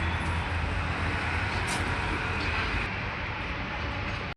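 Steady low rumble and road noise of a moving vehicle.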